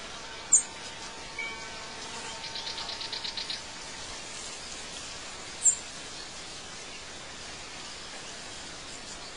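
Outdoor nature ambience: a steady hiss with a sharp, very high chirp about half a second in and again near six seconds, and a quick trill of about ten rapid pulses around three seconds in.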